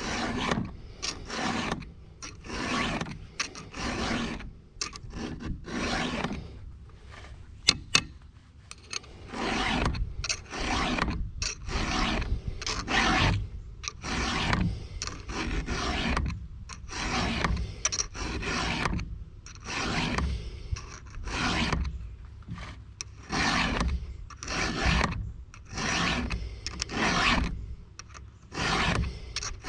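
Hand file rasping across chainsaw chain cutters in repeated strokes, roughly one and a half a second, with a short pause and two sharp clicks about a quarter of the way through.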